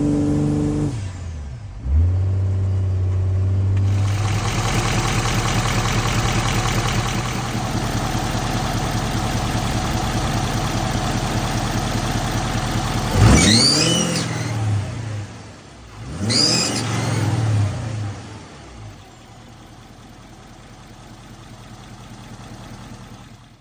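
2011 Ford F-350's 6.7 Power Stroke V8 diesel running, blipped twice about halfway through, with a high-pitched screech that rises and falls with the revs: the bad screech noise the truck has.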